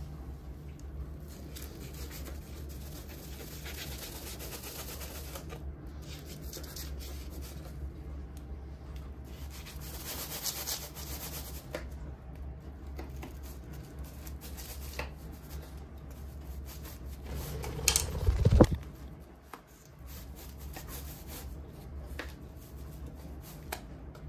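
A crisp, pan-fried gözleme being cut into wedges with the edge of a wooden spatula, the crust scraping against parchment paper, over a steady low hum. A single loud thump comes about three quarters of the way through.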